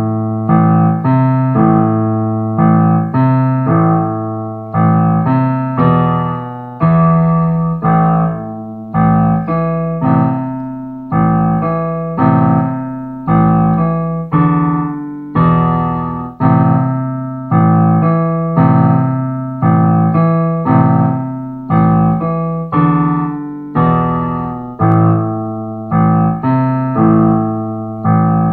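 Piano played with both hands, a slow, even pattern of notes and chords struck about once a second, each left to ring and fade, over low bass notes.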